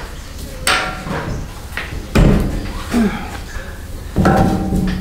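Tools being handled in a garage: a string of knocks and clunks. The heaviest is a deep thump about two seconds in, and the last, about four seconds in, has a short ring.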